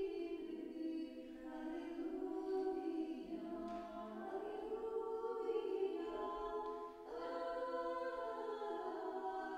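Background music: an a cappella choir singing slow, held notes.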